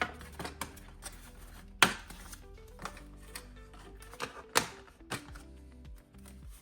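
Background music with held tones, with sharp clicks and taps now and then. The loudest click comes about two seconds in and another about four and a half seconds in.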